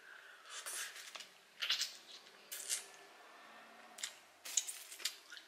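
Crab-leg shells cracking and being pulled apart by hand, with wet chewing and mouth sounds: a handful of short, sharp crackles spread through.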